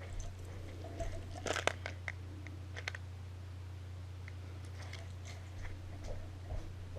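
A few small clicks and light knocks, a quick cluster about a second and a half in and another near three seconds, over a steady low electrical hum.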